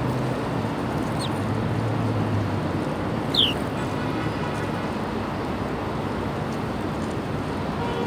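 Steady city traffic noise, with two short falling chirps from a small bird, one about a second in and a louder one about three and a half seconds in.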